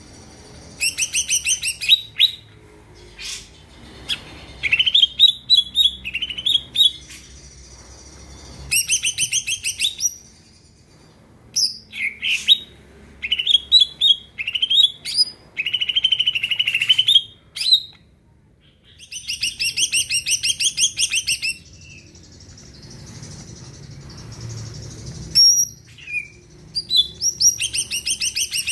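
Greater green leafbird (cucak ijo) singing a loud, varied song: rattling trills about a second long alternate with short whistled notes that sweep upward, in phrases broken by brief pauses.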